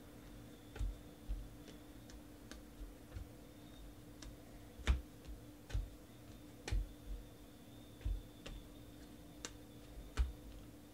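Glossy chromium trading cards being shuffled through by hand one at a time: short, irregular clicks and soft taps as each card is slid off and tapped onto the stack, slightly more than one a second, over a faint steady hum.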